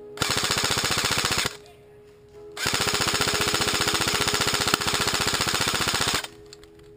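Airsoft rifle firing on full auto: a short burst of just over a second, then a longer burst of about three and a half seconds, each a rapid even rattle of shots.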